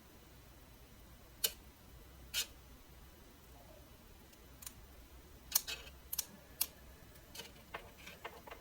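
Scattered small clicks and taps of plastic LED light strip connectors being handled and pushed together: two single clicks, then a quicker run of them in the second half.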